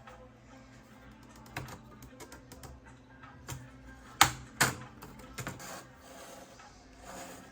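Scattered light clicks and taps, with two sharp, louder clicks about halfway through and a soft swish near the end, over soft background music.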